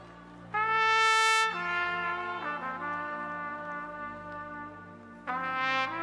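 Trumpet played solo into a microphone. A loud bright note enters about half a second in and is held for about a second, then softer held notes shift in pitch, and another loud note comes in near the end, all over a steady low backing drone.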